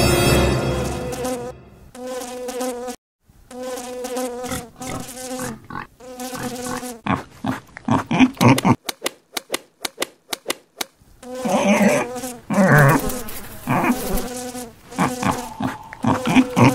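Cartoon housefly buzzing in broken bursts that waver in pitch, interrupted about halfway through by a quick run of sharp clicks, with the buzzing growing busier and louder near the end.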